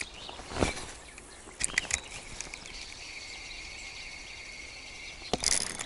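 Spinning reel being cranked on a lure retrieve: a steady, even whir from the reel's gears that starts about two seconds in, after a few sharp clicks, and stops just before a sudden louder rustle near the end.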